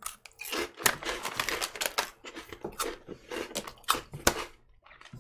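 Crunchy chips being chewed close to the microphone: an irregular run of crisp crackles and crunches.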